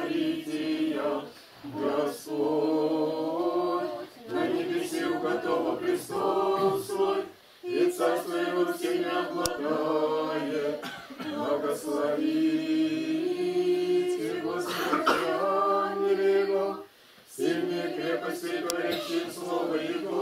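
A small group of men's and women's voices singing an unaccompanied Orthodox church chant, in long held phrases with short breaks between them.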